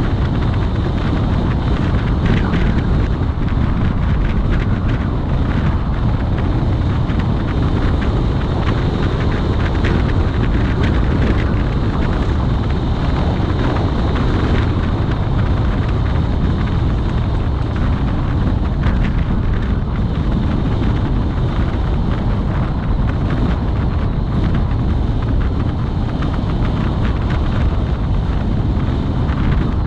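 Steady wind buffeting on the microphone over the road and engine noise of a moving vehicle.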